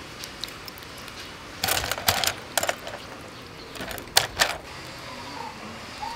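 Slippery catfish being handled in a woven bamboo basket: short bursts of clattering and scraping, one cluster about a second and a half in and another about four seconds in.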